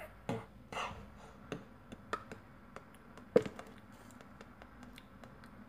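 Scattered light taps, clicks and handling noises from hands working with small objects, with one sharper knock about three and a half seconds in.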